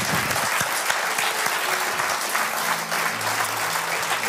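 Church congregation applauding, many hands clapping steadily.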